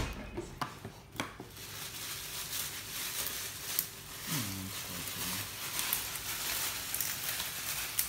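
A few light clicks and knocks, then a steady crinkling rustle with small ticks, with a brief low voice sound about four and a half seconds in.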